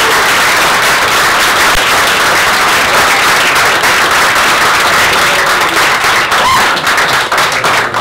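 Audience applauding, a dense steady clapping that thins into scattered separate claps near the end.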